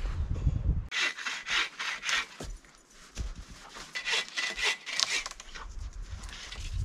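Hand saw cutting through a dead spruce log in quick back-and-forth strokes, about two to three a second, with a short pause partway through.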